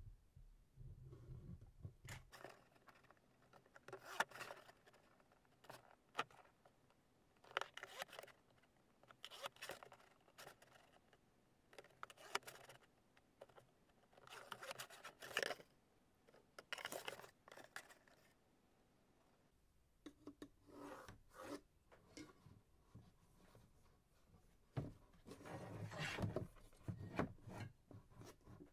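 Cardboard being cut and handled: quiet, intermittent scraping and cutting strokes with short pauses between, and a longer run of strokes near the end.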